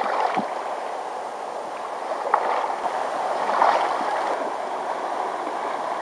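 Steady rush of a shallow river's current over choppy riffles, an even watery noise.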